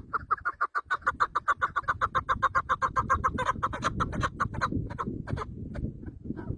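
Chicken clucking in a rapid, even run of short notes, about six a second, over a steady low rumble.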